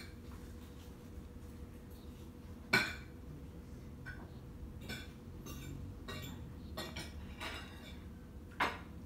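Cat crunching dry kibble: irregular crisp crunches, with two louder ones about three seconds in and near the end.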